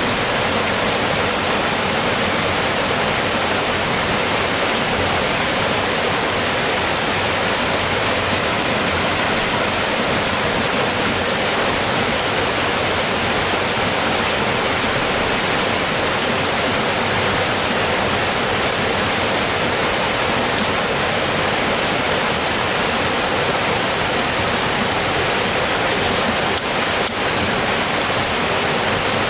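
Mountain stream rushing over rocks in small white-water cascades: a steady, even rush of water.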